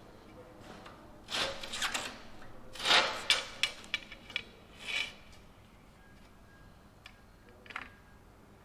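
A sheet-metal part being handled and offered up for a test fit: a few short metallic scrapes and rubs, with a quick run of sharp clinks and knocks about three to four seconds in.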